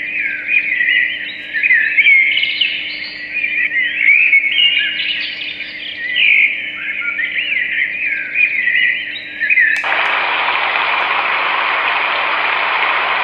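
Recorded birdsong played through a baby sound machine's small speaker: repeated chirps and whistled warbles. About ten seconds in, a click and the sound switches abruptly to a steady hiss from the machine's next sound setting.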